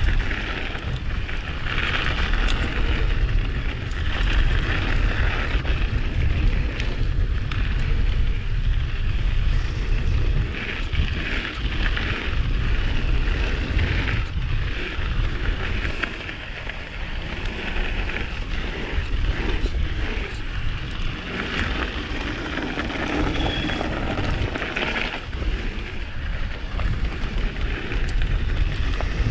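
Mountain bike riding downhill on a cold trail: wind buffeting a chest-mounted camera's microphone as a steady low rumble, with tyre and trail noise rising and falling over it.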